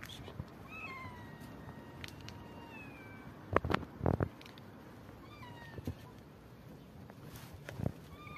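Kittens meowing repeatedly: drawn-out, thin calls that slide down in pitch. A few sharp knocks come about halfway through and again near the end.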